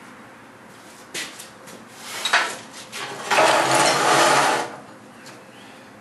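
Electric welding arc buzzing for about a second and a half while a tack weld is laid on steel, after a few sharp clicks and knocks of metal being handled.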